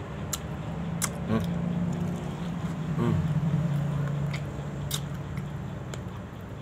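Close-up eating sounds of biting and chewing a sauce-glazed chicken piece: scattered wet mouth clicks and smacks. Underneath, a steady low hum grows louder about a second in and fades again near the end.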